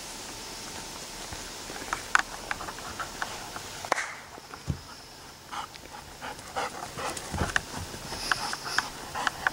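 A young Alaskan Malamute panting and moving across grass with a ball in her mouth: a string of short, soft ticks and rustles that come closer together toward the end as she nears.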